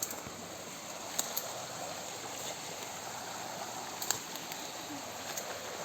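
A river flowing: a steady rush of water, with a few faint clicks.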